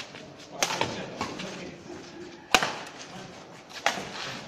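Badminton rackets striking a shuttlecock back and forth in a doubles rally: three sharp hits, the loudest about halfway through.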